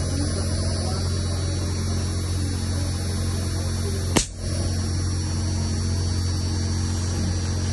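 Steady electrical mains hum, pitched near 100 Hz, with a sharp click about four seconds in where the hum briefly drops out.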